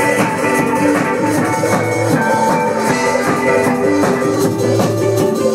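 Music with drums and a steady beat, several instruments holding notes over it.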